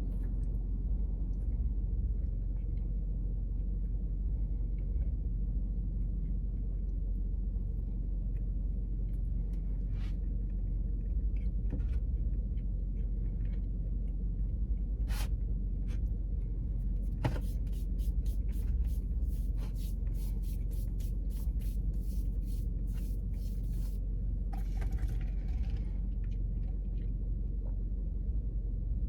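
Idling car heard from inside the cabin: a steady low rumble, with scattered small clicks and a quick run of crackling rustles about two-thirds of the way through.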